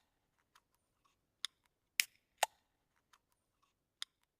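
Sharp, dry clicks or taps at irregular intervals, four of them louder than the rest.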